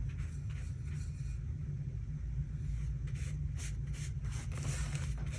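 Soft, irregular swishes and scratches of a wet paintbrush stroking across watercolor paper, over a steady low rumble.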